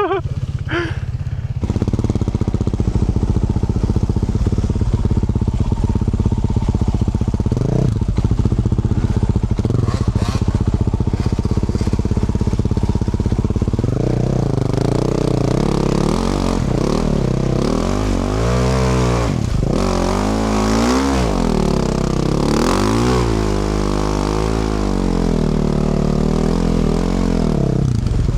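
Yamaha YZ450F four-stroke single-cylinder dirt bike engine, through a Yoshimura RS-12 exhaust, running at a steady low rev for the first half. About halfway in it starts revving up and dropping back, over and over, as the bike is ridden over rough trail.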